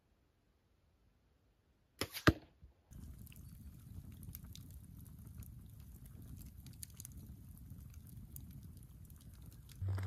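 Two quick sharp hits about two seconds in, then a log campfire burning: a low steady rumble of flame with scattered crackles and pops from the wood.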